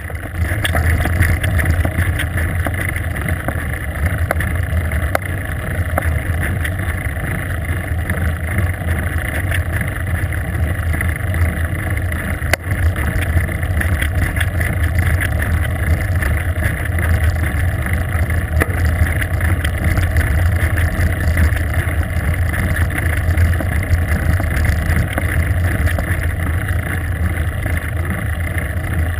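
Wind rushing over a bike-mounted GoPro's microphone as a bicycle coasts fast down a paved road, a steady loud rumble with a few faint ticks from road bumps.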